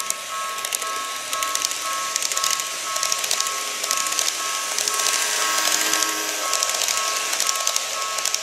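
A model level crossing's electronic warning bell dinging over and over, over the clicking clatter and whir of model E233-series electric trains running past on the track, loudest midway as a train goes by.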